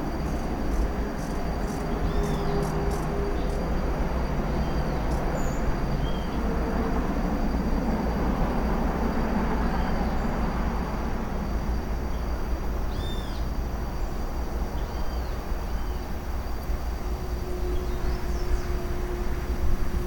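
Wild birds giving short, arching high chirps every few seconds, one louder call about two-thirds of the way through, over a steady low rumble.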